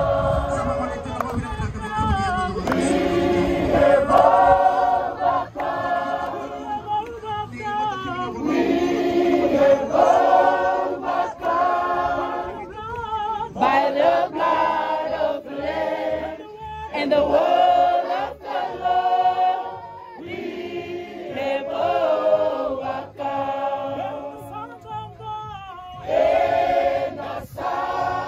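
A rugby team singing a hymn together in a group, unaccompanied, in held phrases that break every second or two.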